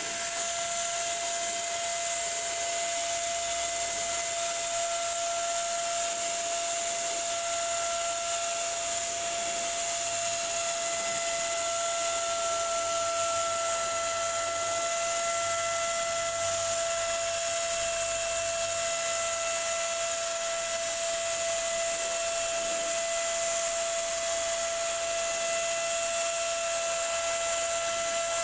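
Handheld electric paint spray gun running, a steady motor whine over a strong rush of air as it sprays a black leather shoe.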